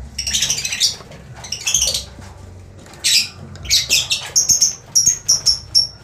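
Lovebirds calling: bursts of high-pitched squawking chatter, then a run of short, repeated high calls, about three a second, in the last second and a half.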